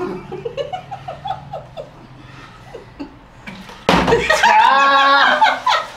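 A partly filled plastic water bottle, flipped onto a wooden table, hits it with a sudden thud about four seconds in and ends up on its side. A burst of loud voices and laughter follows at once, after soft murmurs and giggles.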